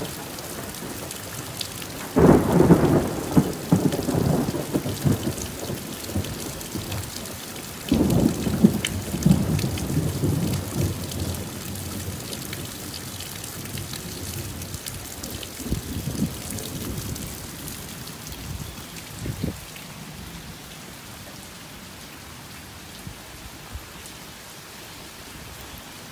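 Steady rain with two loud peals of thunder rumbling for a few seconds each, the first about two seconds in and the second about eight seconds in; a couple of fainter rumbles follow later.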